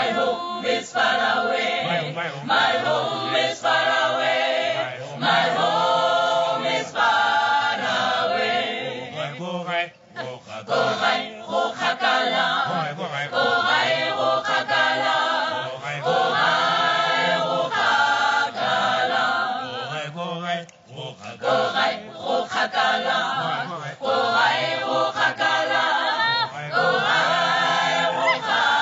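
Mixed group of young men and women singing a cappella in harmony, a repeated chant-like refrain with no instruments.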